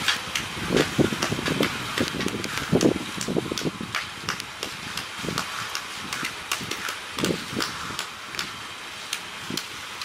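Concrete mixer truck running while it pours, with many sharp clicks and short knocks scattered over it.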